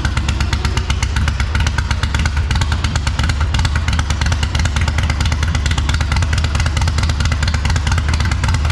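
Very loud V-twin motorcycle engine running steadily, a rapid even stream of exhaust pulses with a heavy low rumble.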